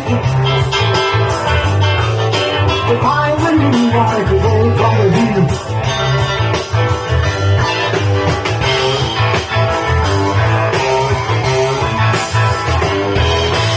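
Live rock band playing an instrumental break: a guitar lead with bending notes over bass, drums and keyboard, on a steady beat.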